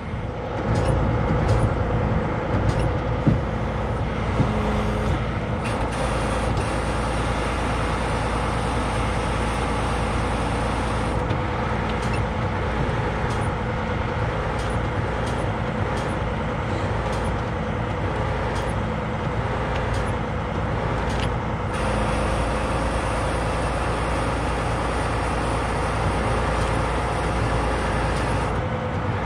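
Wrecker's diesel engine running steadily, a constant low hum, as it powers the boom and winch. A few light clicks come in the first few seconds.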